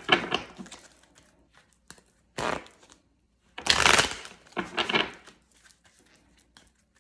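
Tarot cards being shuffled by hand in several short bursts of card rustle.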